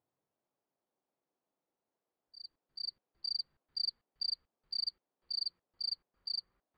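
Near silence for about two seconds, then a cricket chirping steadily at about two chirps a second, a recorded sound effect standing in for silence.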